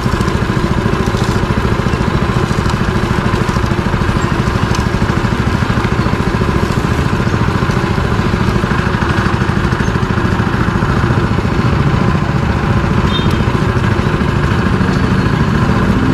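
Sugarcane juicer running steadily as stalks are fed through its rollers to be crushed: a constant machine hum with a fast, even pulse.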